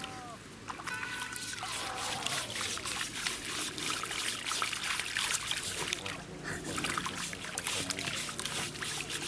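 A small terrier wading and pawing in shallow water at the water's edge: continual small splashes, sloshing and trickling of water around its legs.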